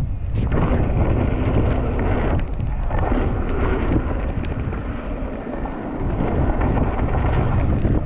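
Wind rumbling on an action camera's microphone during a fast downhill mountain-bike descent, with tyres rolling over a wet dirt trail and scattered knocks and rattles from the bike.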